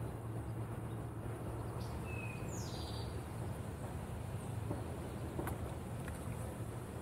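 Steady hum of honeybees flying around open hives. About two seconds in, a bird gives a short whistled note and a falling chirp.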